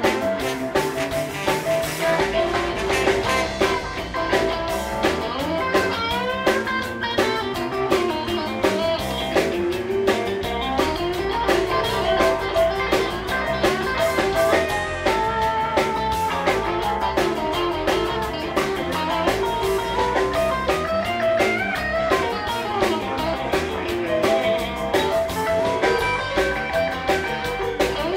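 Live blues band playing, guitar to the fore over a drum kit.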